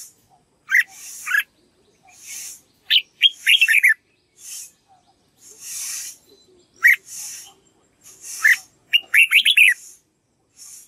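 Red-whiskered bulbul singing short, quick whistled phrases. It gives single notes about a second in and again near seven and eight and a half seconds, and fast runs of notes around three to four seconds and nine to ten seconds. Soft hissy bursts come between the phrases.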